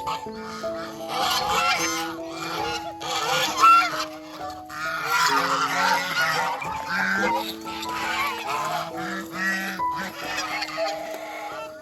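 A flock of domestic geese honking, many calls overlapping and carrying on almost without pause, over soft background music with long held notes.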